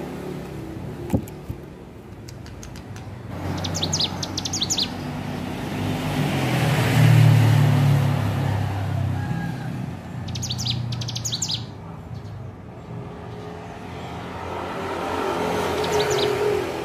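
Ciblek gunung, a small songbird, singing three short bursts of rapid, high chirps, over a steady rumble of passing traffic.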